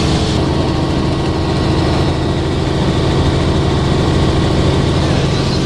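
Helicopter in cruise flight heard from inside the cabin: a loud, steady drone of engine and rotor with a constant low hum.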